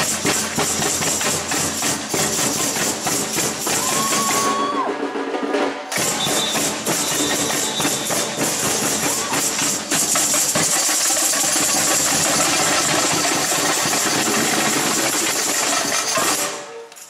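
Samba percussion band playing a fast, dense groove of drums with high rattling shakers and tamborims. The high rattles drop out for about a second around five seconds in, then come back. The playing fades out near the end.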